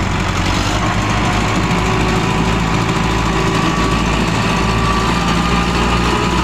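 Diesel engines of a Sonalika tractor and a backhoe loader running steadily, with a faint whine that comes in about a second in and rises slightly in pitch.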